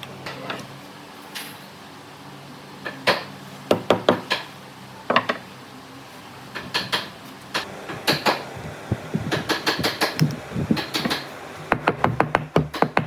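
Irregular sharp knocks and taps of wood being struck or handled in a woodworking shop, a few at first and then many in quick succession in the second half.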